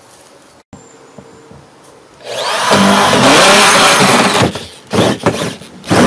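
Cordless drill boring a starter hole through a plastic cooler lid. It starts about two seconds in and runs for about two seconds, then comes in a few short bursts.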